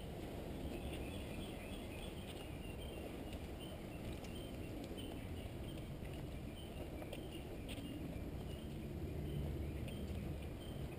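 Small birds chirping in the woods over a steady low rumble, with a few soft footfalls on a dirt path.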